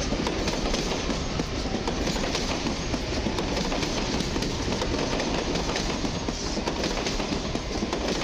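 Newag Impuls electric multiple unit pulling out and running past close by: steady rolling noise of the wheels, with a rapid run of clicks and clatter as they pass over rail joints and points.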